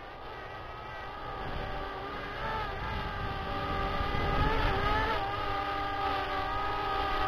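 DJI Mavic Air quadcopter on its stock propellers, the rotors giving a steady buzz of several tones at once that grows louder as the drone flies back toward the listener.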